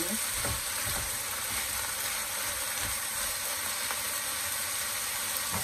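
Spinach and garlic sizzling steadily in a hot wok, with a few spatula strokes in the first second.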